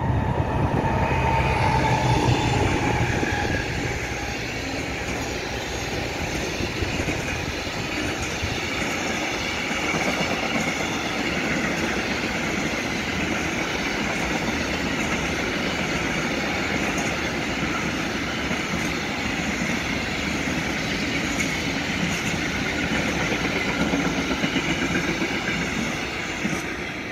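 Freight train running through: a red diesel locomotive's engine is heard in the first few seconds as it passes. Then a long string of empty container flat wagons rolls by with steady wheel-on-rail noise, which eases a little near the end.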